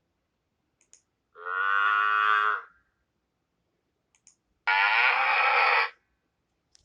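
Cattle mooing: two long, steady moos, each lasting about a second, a few seconds apart, each preceded by a faint short click.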